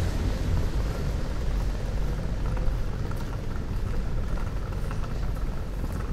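Outdoor city street ambience: a steady low rumble with an even background hiss and a few faint scattered ticks and clicks over it.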